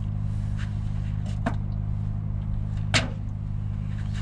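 Truck diesel engine idling steadily, with two sharp clicks from handling the fuel tank and bottle, the louder one about three seconds in.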